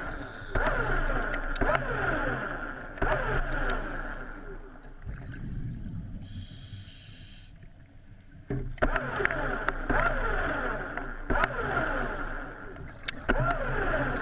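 Scuba regulator heard underwater: exhaled bubbles burble out in pulses. They fade into a pause with a high hiss of inhaling through the regulator, then the bubbling picks up again about two-thirds of the way in.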